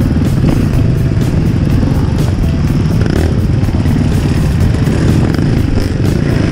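Enduro motorcycle engine running steadily and loudly while being ridden.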